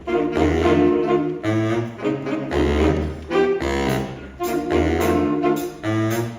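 Jazz ensemble (big band) playing a swing chart, with saxophones and brass in short, punchy repeated chords over a bass line recurring about once a second. Cymbal strokes come in during the second half.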